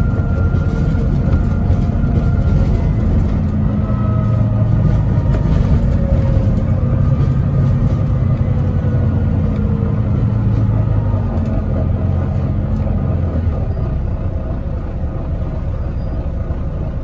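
Volvo B9TL double-decker bus running along the road, heard from the upper deck: a steady low diesel engine hum with tyre and road rumble. The engine note rises and falls a few times as the bus pulls along, and it eases a little near the end.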